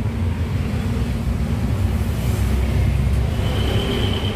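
A steady low mechanical rumble. A faint high whine joins about three seconds in.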